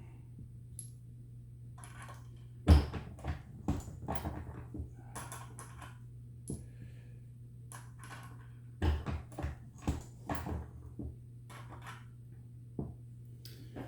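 Reloading press being worked to crimp .357 Magnum cartridges in a Lee collet-style factory crimp die: irregular metallic clicks and knocks from the press and the brass cases. The loudest knock comes about three seconds in and another cluster comes around nine to eleven seconds. A steady low hum runs underneath.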